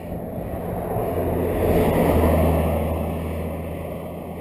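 A motor vehicle passing the bike: engine hum and road noise swell to a peak about two seconds in, then fade, with wind on the microphone.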